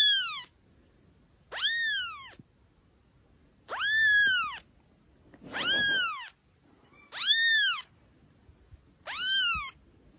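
Young kitten meowing six times in high, thin calls, each rising then falling in pitch, about one every one and a half to two seconds.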